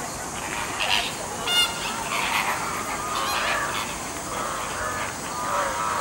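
A flock of flamingos calling, many short honks overlapping one another.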